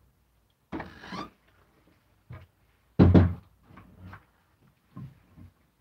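A few knocks and bumps, like a cupboard or door being handled, with the loudest thump about three seconds in.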